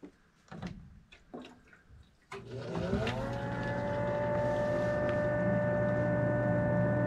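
Water from a jug splashing into a condensate pump's reservoir. About two seconds in, the pump's small electric motor kicks on as the water level lifts its float, with a hum that rises briefly in pitch and then holds steady while it pumps the water out.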